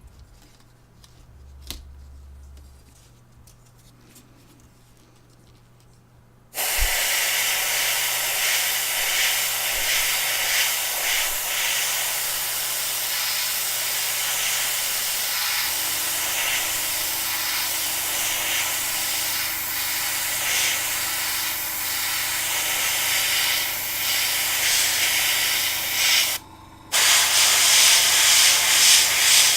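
Spray paint hissing from a nozzle in one long continuous spray that starts suddenly about six seconds in, breaks off briefly near the end, then resumes.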